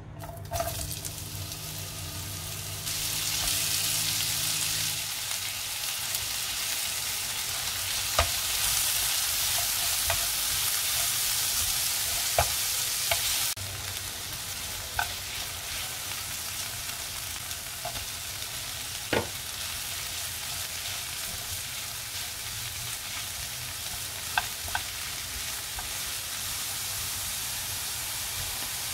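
Sliced onions, red peppers and carrot sizzling steadily in a frying pan while a silicone spatula stirs them. The sizzle is louder through the first half, and a few sharp taps of the spatula against the pan are heard.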